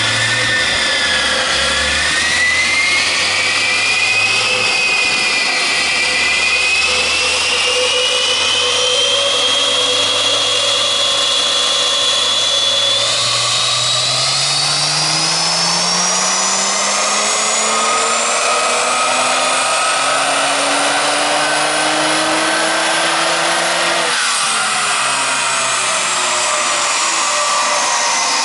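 BMW 135i's turbocharged inline-six making a full-throttle pull on a chassis dynamometer: the dyno rollers' high whine climbs steadily with the revs, then the throttle closes a few seconds before the end and the whine falls away. The aftermarket exhaust is barely heard under the dyno.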